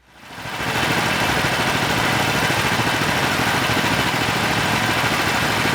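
Racing kart engines running steadily, a rough mechanical drone that fades in over the first second.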